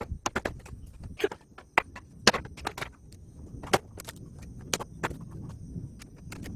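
A series of irregularly spaced sharp knocks and clicks, with a faint steady high-pitched tone behind them.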